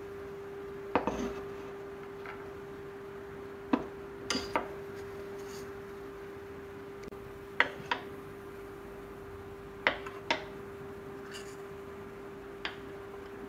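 Glass bowls and ceramic plates set down one after another on a bamboo board: about nine short clinks and knocks, some in quick pairs, over a steady hum.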